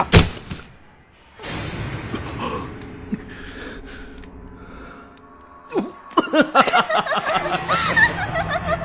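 A sharp hit just after the start, then soft background music with held tones; about six seconds in, a woman breaks into a run of laughter.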